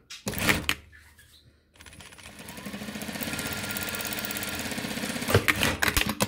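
Industrial lockstitch sewing machine stitching a seam: it starts about two seconds in, picks up speed and runs steadily with a fast even rhythm. A few sharp knocks come before it starts, and a clatter of knocks near the end as it slows.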